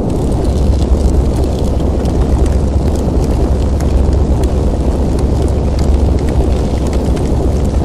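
A loud, steady rumbling roar with scattered crackles, a fire-and-rumble sound effect that starts suddenly and does not change in pitch.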